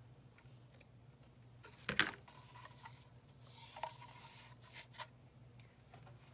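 Scissors snipping once through fabric ribbon about two seconds in, followed by a few lighter clicks and rustles as the ribbon spool is handled, over a steady low hum.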